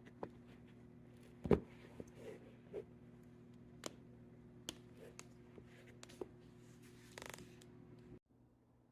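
Scattered clicks and taps of hands handling and working on a shoe, with one louder knock about a second and a half in and a short rustle near the end, over a steady low hum that cuts off suddenly about eight seconds in.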